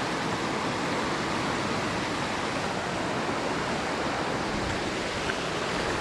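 Mountain stream running high after heavy typhoon rain, rushing and splashing over rocks in a steady, even rush.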